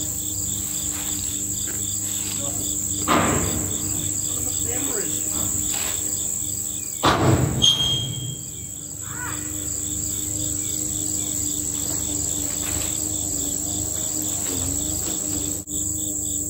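Crickets and other insects chirping: a steady high buzz with a regular pulsing chirp beneath it. Short sharp knocks break in about three seconds in and, louder, in a quick cluster about seven seconds in.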